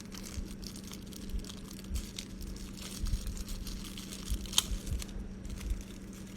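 Flimsy thin plastic packaging crinkling and tearing as it is handled open, with scattered small crackles and one sharper click about four and a half seconds in.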